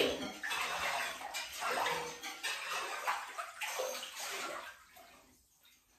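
Water swishing and sloshing in a filled bathtub as it is stirred by hand, in repeated strokes of one to two a second that stop near the end.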